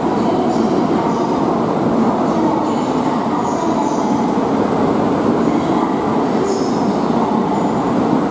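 E2 series Shinkansen standing at the platform, its on-board equipment giving a steady, loud rushing hum. A few short high-pitched squeaks come and go.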